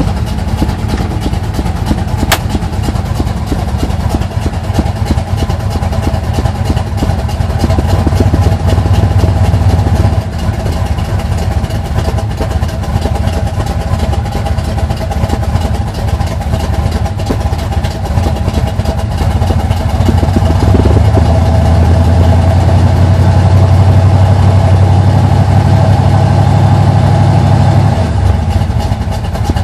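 Junkyard L31 Vortec 350 small-block V8 with a long-duration Summit K1107 cam idling roughly through headers and Thrush turbo mufflers, recorded through a clipping, distorted microphone. The engine note swells louder twice: briefly about seven seconds in, and for several seconds about twenty seconds in.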